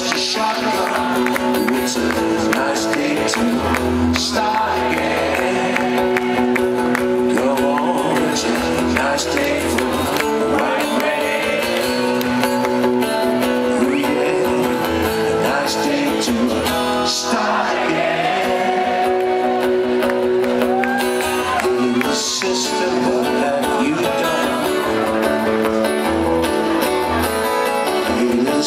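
Live rock band playing, with guitar and a male voice singing, recorded from the audience at a concert.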